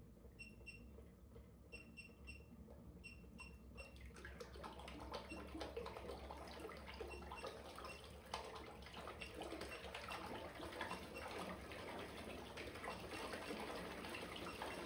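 Water churning and splashing in a tub, stirred by a spinning 3D-printed Holbrook propeller. The splashing sets in about four seconds in and grows steadily louder as the drive current is ramped up. A few short high beeps sound in the first seconds.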